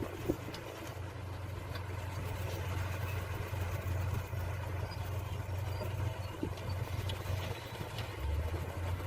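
Diesel engine of a heavy earthmoving machine running steadily with a low hum, with a couple of light knocks.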